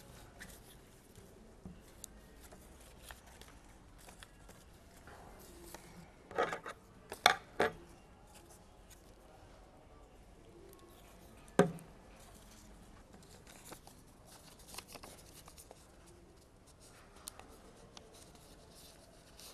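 Paper craft pieces being handled and pressed down close to the microphone. There are a few short crisp paper rustles about six to eight seconds in and a single sharp click near twelve seconds, with faint handling noise in between.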